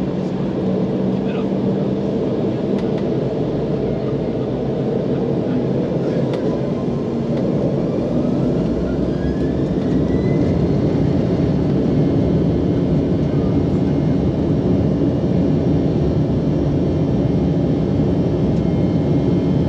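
Embraer E195's turbofan engines heard from inside the cabin, spooling up for takeoff: a whine rises in pitch over a few seconds, and the steady engine and rolling noise grows louder about ten seconds in.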